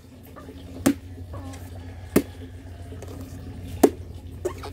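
Machete hacking into a young green coconut to split it open: three sharp chops about a second and a half apart, with a lighter one near the end.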